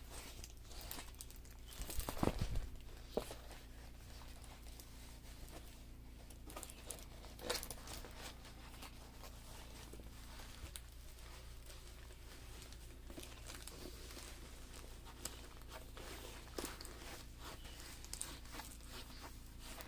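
Intermittent crinkling and rustling of a sticky diamond-painting canvas and its plastic cover sheet being handled, with a louder burst of crackling about two seconds in and scattered small clicks after.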